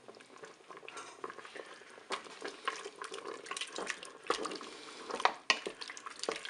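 A spoon stirring a creamy mushroom sauce in a Cookeo multicooker's inner pot, scraping and clicking irregularly against the bowl as the crème fraîche is mixed in.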